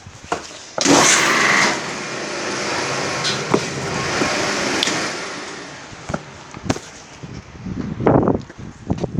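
Milk house pressure washer running, a loud hissing rush of spray that starts abruptly about a second in and fades away after about five seconds, with scattered clicks and knocks.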